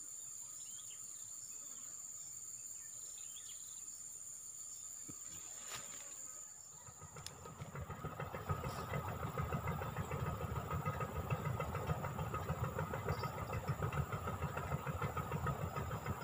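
A steady high-pitched whine over a quiet outdoor background. After about six and a half seconds a louder, low, fast-throbbing rumble sets in and carries on, engine-like.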